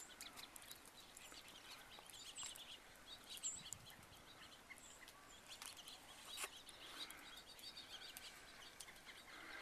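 Faint, scattered chirps of small birds over a quiet outdoor hush, with a few soft clicks.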